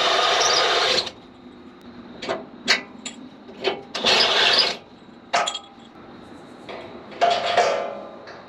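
Electric drill cutting through steel with a step bit in three short bursts of about a second each, with a few knocks between them.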